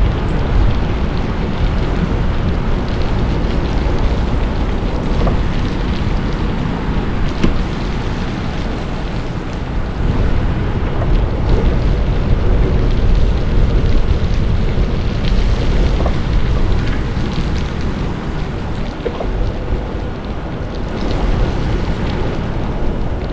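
Wind buffeting an action camera's microphone while riding a bicycle: a steady, loud rush of noise heaviest in the low end, with scattered light ticks and rattles.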